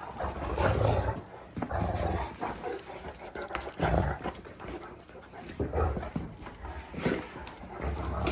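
Great Danes play-fighting in a bout of house zoomies: dog noises and heavy thuds come in bursts every second or two.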